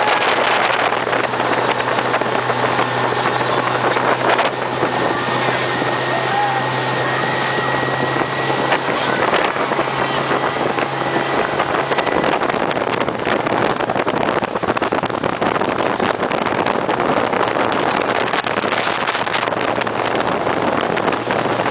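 Speedboat running at speed: a steady low engine drone under the rush of wind on the microphone and water churning along the hull.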